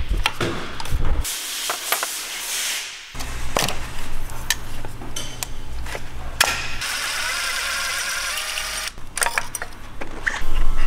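Hand-tool work on a BMW N57 diesel engine's top end: a metal spanner working bolts and fittings while parts are unclipped, heard as scattered sharp clicks, clinks and knocks.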